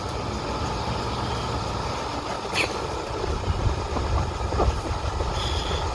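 Steady hum and rush of a room cooling fan running, with a couple of faint clicks in the middle.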